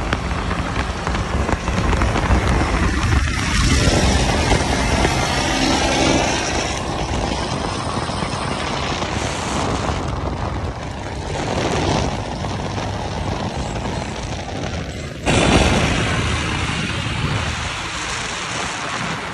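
Diesel tractor engines running, mixed with tyre and wind noise, heard from a car driving alongside tractors pulling trailers. About fifteen seconds in the sound changes abruptly.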